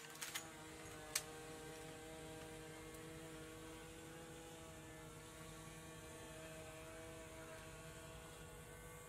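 A faint steady hum made of several held tones over a low rumble, with a few sharp clicks in the first second or so.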